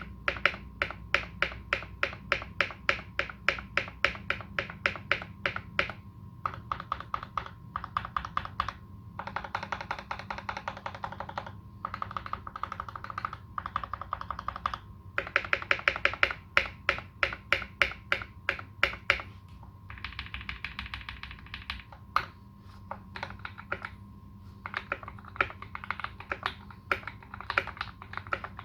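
Custom Canoe Gen2 mechanical keyboard with lubed, modded Alpaca v2 linear switches and GMK Dolch keycaps being typed on in steady runs of keystrokes. There are a couple of faster, denser flurries, about a third of the way in and again past the middle.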